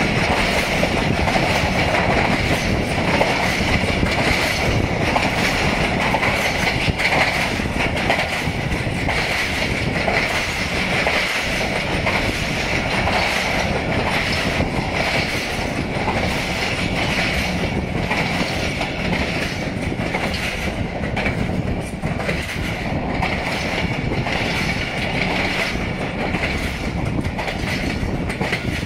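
Passenger train coaches rolling slowly over worn, run-down track: wheels clattering over the rail joints and the coach rattling, with a steady high-pitched whine above the clatter.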